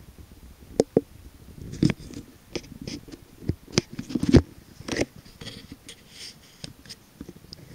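Handling noise: irregular clicks, taps and rubbing as the camera and gear are handled, with a louder knock about two seconds in and another a little after four seconds.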